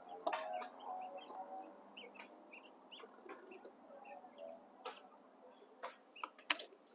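Caged quail giving many short, faint chirps and calls, with a few sharp clicks, the loudest near the end.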